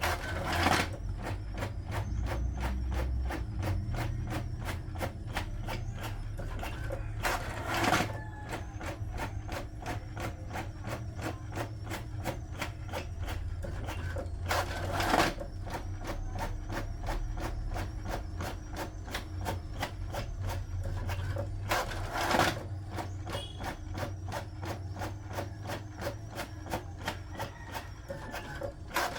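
Brother printer printing: a fast, even ticking over a steady low hum, with a louder rushing burst about every seven seconds.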